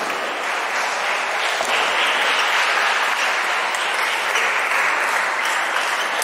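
A steady, dense crackle like applause: the din of a busy table tennis hall.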